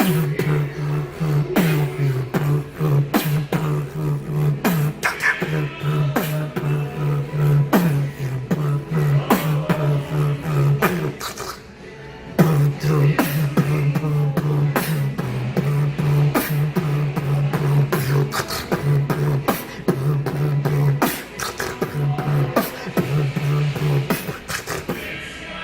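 A beatboxer performing: rapid sharp vocal drum clicks over a pulsing low bass tone. The bass drops out and the level dips briefly about eleven seconds in.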